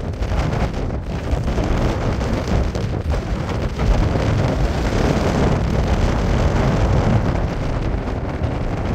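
Storm wind gusting hard on the microphone in a loud, uneven rumble, with the steady jet noise of a twin-engine widebody airliner on final approach underneath.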